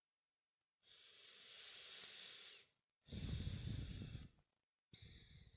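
A woman's breathing, close to the microphone: a long soft inhale, then a stronger exhale that rumbles as it hits the mic, then a shorter breath near the end.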